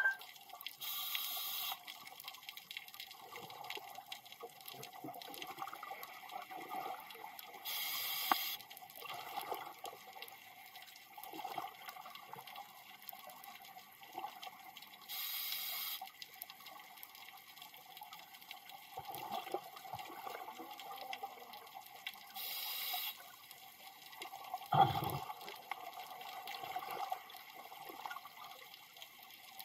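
Underwater scuba breathing: a regulator breath hisses about every seven seconds, with bubbling and gurgling between the breaths. A single knock comes about 25 seconds in.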